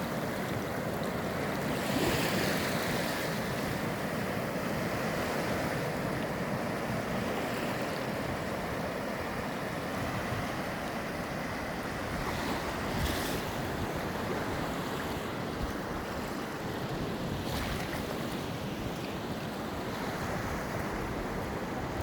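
Steady rushing of waves and wind, with brief louder swells about two seconds in and again around thirteen seconds.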